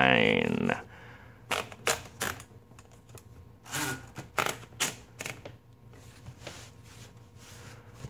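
Paper being fed into a Royal Model P portable typewriter: a scattering of sharp, irregular clicks from the platen knob and carriage as the sheet is rolled through, with a short paper rustle about four seconds in.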